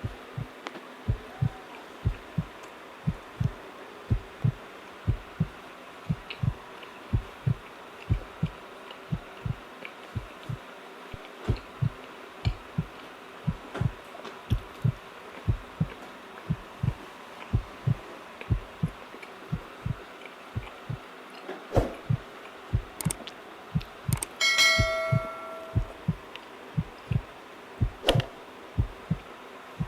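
A person chewing a doughnut close to the microphone: soft, low thuds about twice a second, with a few small clicks. A short ringing ding sounds once, about 25 seconds in.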